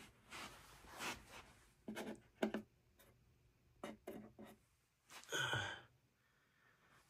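Handling noise from a plastic RC scale destroyer model: a string of soft rubs, scrapes and light clicks as the hull and deck parts are moved. A louder, short sound comes about five seconds in.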